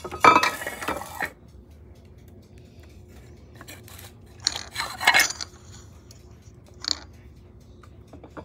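Glass jar and plastic parts of an Oster blender being handled, knocking and clinking against a granite countertop: a clatter in the first second, another around five seconds in, and a single bright clink near seven seconds.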